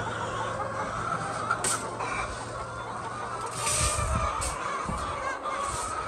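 A large flock of white laying hens clucking, many calls overlapping continuously.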